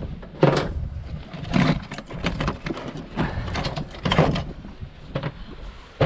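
A string of irregular knocks, clicks and clatter, several in quick succession at times, from things being handled and set down.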